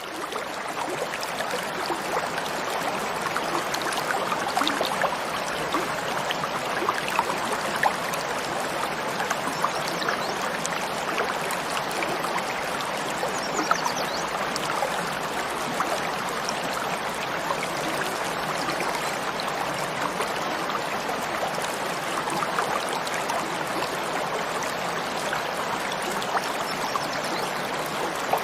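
Mountain stream flowing over rocks: a steady rush of water with small splashes and gurgles throughout.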